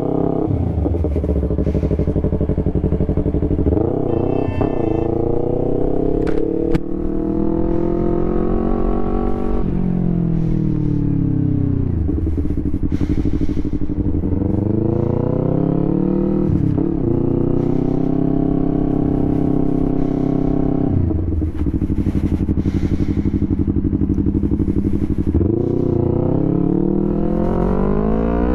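Yamaha YZF-R3's 321 cc parallel-twin engine running through an Akrapovič full exhaust while riding at low speed. The revs climb and drop back several times as the bike pulls away and changes speed.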